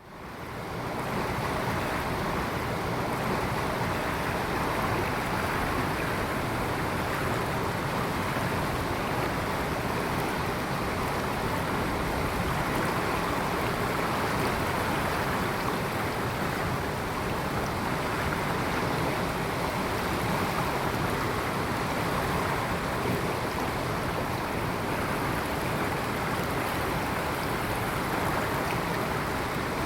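Steady rushing noise of moving water, fading in over the first second.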